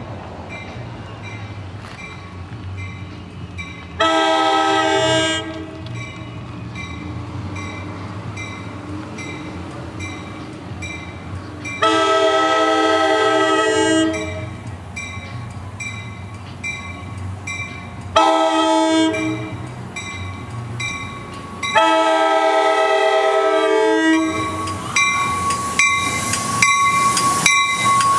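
A Nathan K5LA five-chime air horn on the approaching NJ Transit train sounds the grade-crossing signal: long, long, short, long. A crossing bell dings steadily throughout. Near the end the train's wheels clatter past, with a steady squeal.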